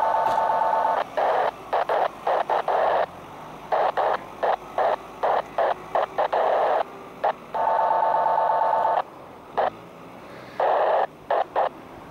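Radio static: bursts of hiss that cut sharply on and off many times. A steady buzzing tone sounds in the first second and again about eight seconds in.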